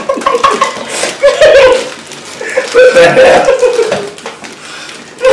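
A man and a woman laughing hard together in bouts, the woman's laughter muffled by a mouthful of marshmallows.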